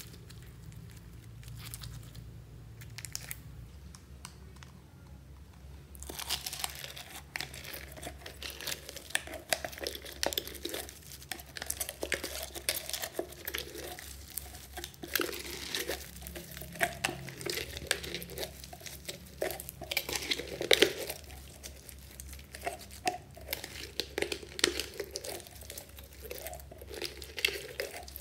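Clear slime packed with foam beads being stretched, folded and squeezed by hand: a dense, irregular crackling and popping with sticky tearing. It is sparse at first and gets much busier about six seconds in.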